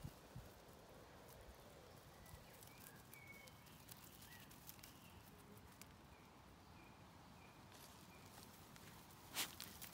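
Near silence with faint, scattered bird chirps and a few light ticks, and one sharp knock about nine seconds in.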